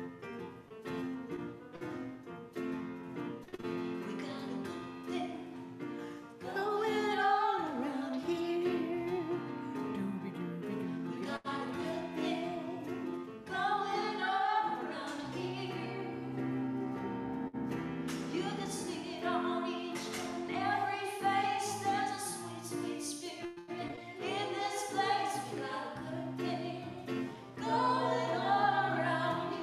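A woman singing, accompanied by her own electronic keyboard. The keyboard plays alone for about the first six seconds, then the voice comes in with long held notes.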